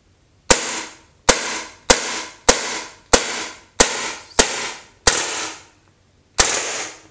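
Umarex Beretta M9A1 CO2 blowback BB pistol firing nine shots, about one every 0.6 seconds, with a pause before the last. Each shot is a sharp crack that trails off over about half a second. The CO2 cartridge is running out.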